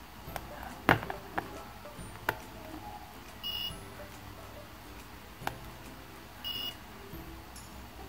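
Small buzzer of a BC547 infrared detector circuit giving two short high beeps a few seconds apart, each time it picks up an infrared pulse burst from an air conditioner remote, with sharp clicks of the remote's buttons being pressed in between. Background ukulele music runs underneath.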